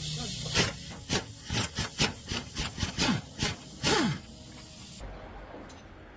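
About a dozen short, quick scraping or rubbing strokes over roughly three and a half seconds, a few ending in a falling squeak. They stop about four seconds in.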